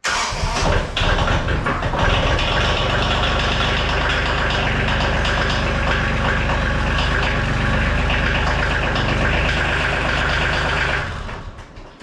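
KIOTI compact tractor's diesel engine cold-starting and then running at a steady, even rhythm before the sound falls away near the end. The owner calls it a typical KIOTI cold start, a poor starter in any weather.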